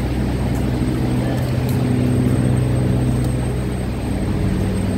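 Steady low mechanical drone of running machinery, even in pitch.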